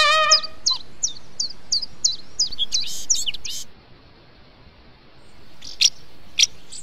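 A small songbird singing a run of repeated high, downward-slurred notes, about three a second, for about three seconds. A few short, sharp high calls follow near the end.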